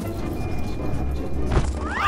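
Cartoon soundtrack: background music with a steady low bass and a short knock about one and a half seconds in.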